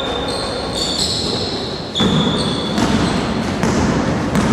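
Basketball bouncing on a wooden gym floor during play, with sneakers squeaking in short high chirps and players' running steps. The sound echoes through the hall, and the bouncing and footfalls get louder about halfway through.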